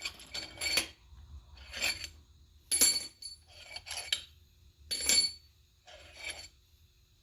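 Steel parts clinking against each other, about eight short separate clinks, each with the same bright ring, as loosened cylinder-head bolts and tools are handled.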